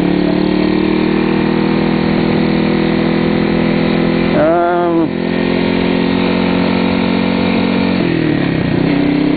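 Cruiser motorcycle engine running steadily under way, its pitch creeping slowly upward, with a brief waver and dip in engine pitch near the end.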